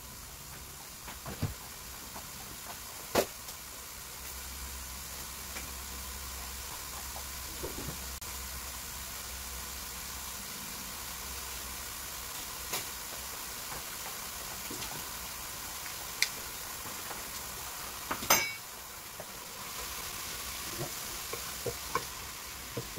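Raw minced beef sizzling steadily in a frying pan on a gas burner as it starts to brown, with a few sharp clicks along the way, the loudest about three-quarters of the way through. Near the end it is stirred with a wooden spoon.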